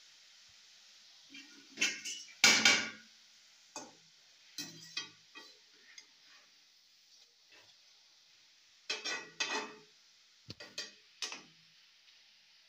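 A steel ladle clanking and scraping against a steel kadai as sev is stirred in hot frying oil, in several clusters of sharp clatters; the loudest come about two and a half seconds in. A steady sizzle of the oil runs underneath.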